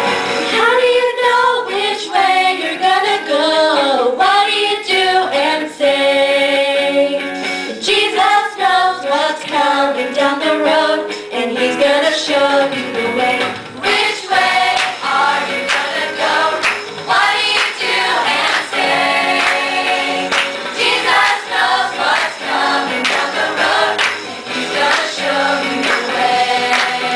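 Teenage Christian choir, mostly girls' voices, singing a pop-style song with band accompaniment and a steady beat.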